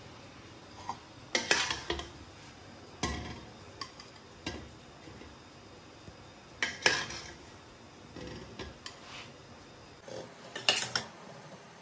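A serving spoon scoops cooked pulao rice out of a stainless-steel pot, scraping and clinking against the pot and a glass serving bowl in irregular bursts, about eight in all.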